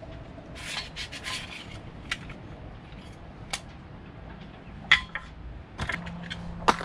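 Clicks and clatter of hard parts being handled as new masthead sheave wheels and their separators are fitted into an aluminium masthead fitting, with a rustle of handling early on and a few sharp single clicks spread through. A low steady hum comes in near the end.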